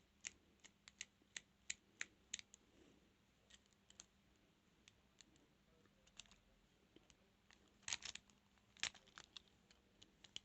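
Faint, irregular metallic clicks and scratches of a lock pick and tension wrench working the pins inside a transparent practice padlock, with a denser run of clicks about eight to nine seconds in. The lock does not open.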